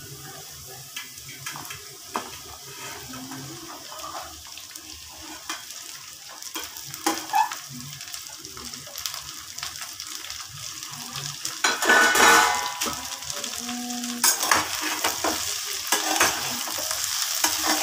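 Sliced okra being tipped into a kadai of hot oil with onions and garlic and stirred with a spatula: scrapes and clinks against the pan over the sizzle of frying. The sizzle grows louder from about twelve seconds in as the okra starts to fry.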